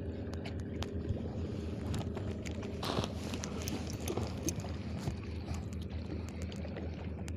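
Steady low hum of a boat engine running, with scattered clicks and knocks and a brief rush of noise about three seconds in.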